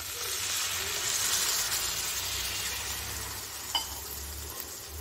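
Water poured into a hot kadai of fried mango pieces and spices, sizzling and hissing as it hits the hot oil, strongest in the first two seconds and then slowly easing. A brief click about four seconds in.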